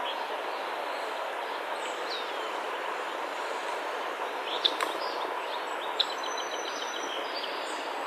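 Steady outdoor background hiss with scattered bird calls: a single falling whistle about two seconds in, a few sharp chips past the middle, and a quick run of short high notes just after six seconds.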